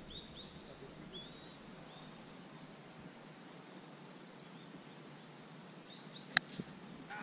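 A golf club strikes the ball once, a single sharp click about six seconds in. Before it, birds give short chirps over a quiet outdoor background.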